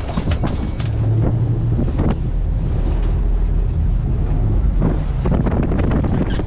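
Wind buffeting the microphone on a boat under way offshore: a loud, steady low rumble of engine and rushing water.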